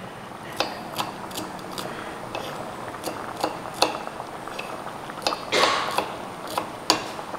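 Small knife slicing shallots on a wooden board: irregular sharp taps of the blade on the wood, with a brief scraping rustle about five and a half seconds in.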